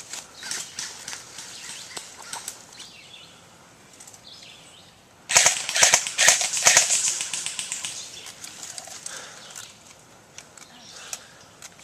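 Rustling with scattered sharp clicks, then a loud, dense run of rapid cracks and rustle about five seconds in that lasts about a second and a half.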